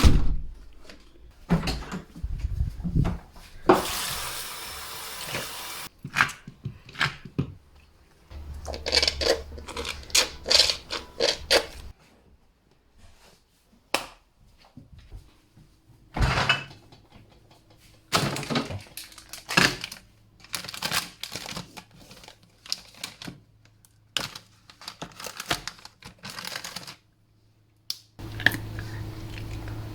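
A string of separate household noises made by hand: sharp knocks, clacks and clatters of objects being struck or handled, with a steady hiss lasting about two seconds near the start, and short quiet gaps between them.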